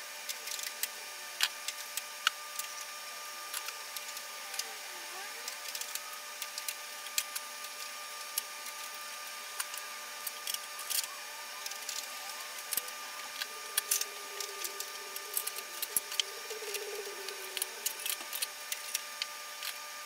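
Circuit cards being handled and slid into the metal card cage of an Ampex VR-1200B quad videotape machine: irregular light clicks and knocks over a steady faint hum.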